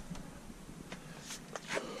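A few faint, brief clicks and rustles of a handheld camera being moved about and carried out of a pickup's cab.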